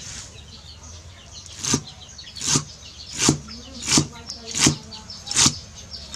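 Cleaver chopping leafy green herbs on a thick round wooden chopping block: six steady chops, about one every three-quarters of a second, starting almost two seconds in.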